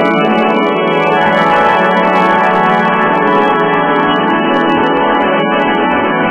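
Loud, steady organ-like drone of many stacked held tones, with faint crackles above it: cartoon voice audio run through heavy electronic effects until no words remain.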